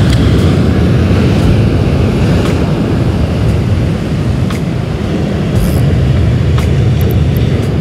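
Surf breaking against a rocky shore: a loud, steady low rush of water, with a few faint light clicks over it.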